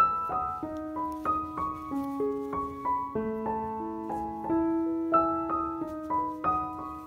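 Background music: a slow piano melody of single notes, a few notes a second.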